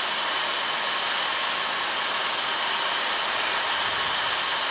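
Steady flight-deck noise of a Boeing 737-800 on short final, with gear down and flaps at 40: an even rush of airflow and engine noise, with a few faint high steady tones above it.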